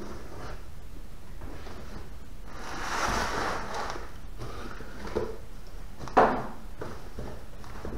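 Cardboard shipping box being opened: packing tape slit and pulled, with a rustling stretch about three seconds in, a small knock, then a sharp cardboard smack a little after six seconds as the flaps are pulled open.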